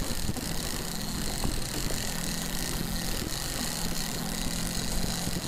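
Boat motor running steadily at trolling speed, a low hum that comes and goes under wind buffeting the microphone.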